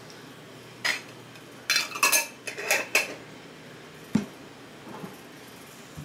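Metal jar lid clinking and scraping against a glass jar in a few quick bursts as it is put on and screwed down, then a single dull knock a little after four seconds in as the filled jar is set on the counter.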